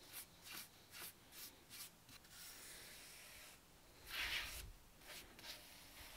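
Paintbrush stroking wood stain onto a wooden hammer handle: soft, faint brushing, about two to three strokes a second, then a longer steady stroke and a louder scuff about four seconds in.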